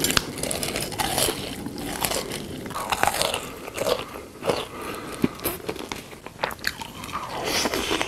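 Crunchy biting and chewing of food, with irregular sharp crackles and no talking.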